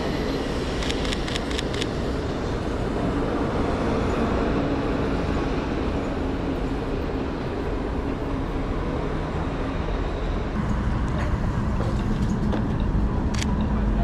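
City street traffic with a heavy vehicle running; its low hum grows louder in the last few seconds. A quick run of sharp clicks comes about a second in.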